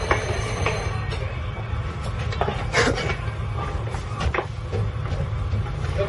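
Steady low rumble of a fishing trawler's engines and deck machinery, with a few short knocks and clanks scattered through it.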